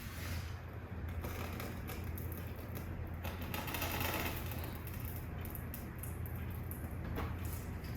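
Steady low hum with soft rustling and scattered small clicks, like objects being handled, and a brief louder rustle about four seconds in.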